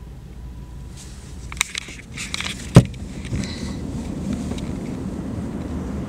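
Car running along, heard from inside the cabin: a steady low engine and tyre rumble. A few clicks and some rustling come about midway, with one sharp knock, the loudest sound, just before the rumble grows a little louder.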